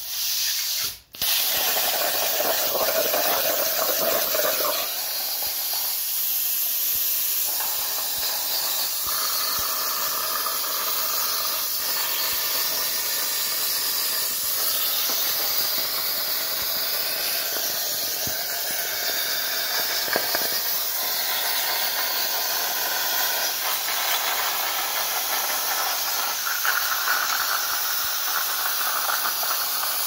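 Plasma cutter cutting steel plate on a homemade CNC table: the steady, loud hiss of the compressed-air plasma arc, with a brief break about a second in before it runs on evenly.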